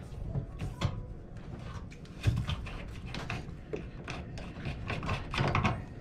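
Scattered light clicks, scrapes and knocks of a washing machine's water supply hose being unscrewed by hand from the inlet water valve fitting, with a louder knock a little over two seconds in.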